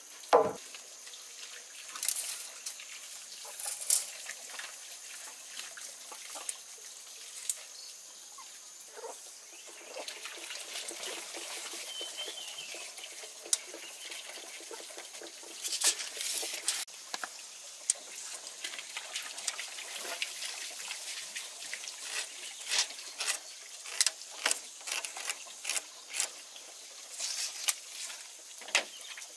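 Trickling, splashing water with irregular small knocks and clicks scattered through it.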